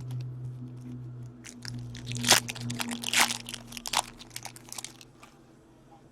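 Trading-card pack wrappers and cards being handled: a run of crinkling, crackling noises that builds up and fades out, loudest in the middle.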